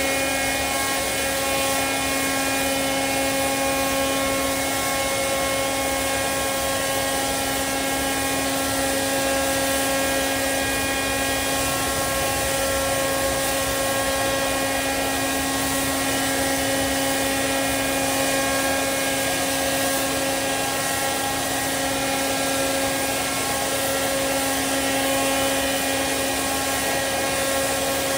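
Ground support equipment running steadily beside the airliner: the jet air starter unit and the ground air conditioning unit that feeds the cabin, a constant drone with several steady tones and no change in pitch.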